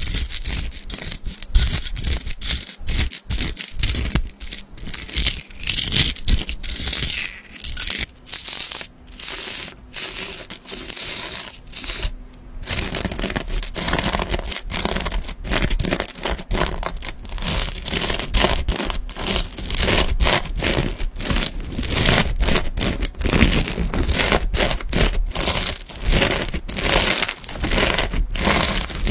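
Hands kneading and pressing clear slime packed with small ribbed beads: a dense, continuous crackle of the beads clicking and crunching together.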